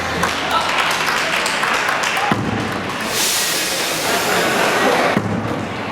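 Outdoor crowd noise at an eisa taiko drum performance: voices and clapping, with scattered drum thumps, and a spell of louder clapping about halfway through.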